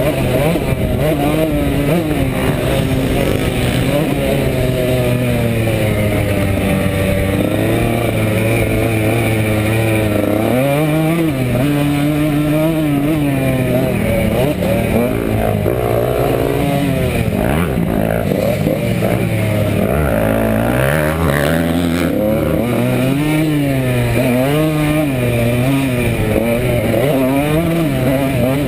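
Dirt bike engine heard onboard while riding a motocross track, revving up and down again and again as the rider works the throttle and shifts gears.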